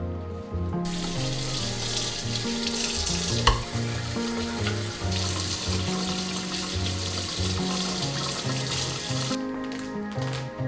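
Water running from a tap, starting about a second in and shut off near the end, with a single knock partway through, over soft background music.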